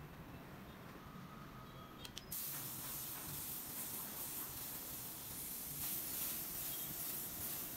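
Gravity-feed compressed-air spray gun hissing as it sprays finish onto a wooden cricket bat. It starts with a couple of clicks about two seconds in, then runs steadily.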